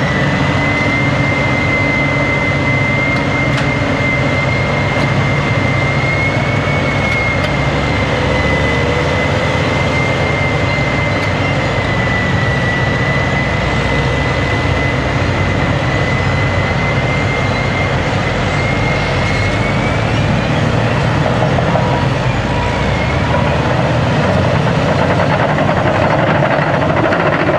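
A Caterpillar D10R crawler dozer push-loading a Caterpillar 631E wheel tractor-scraper: heavy diesel engines running hard under load, with a steady high whine that wavers slightly in pitch.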